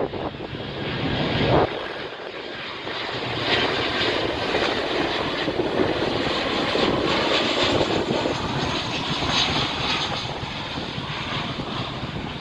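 Aircraft engines running, a steady rushing noise that builds from about two seconds in and eases slightly near the end.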